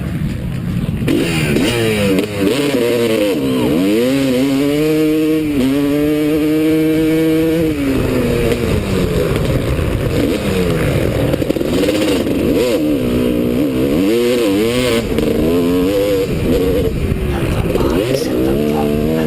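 Motocross motorcycle engines revving up and down repeatedly as they accelerate and shift, with a steady high rev held for a couple of seconds around the middle.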